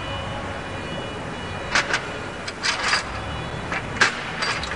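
Several short metallic clicks and knocks from a long wrench bar and tools worked against the fittings of a marine diesel's high-pressure fuel pump, the loudest about four seconds in. A steady machinery hum carries on underneath.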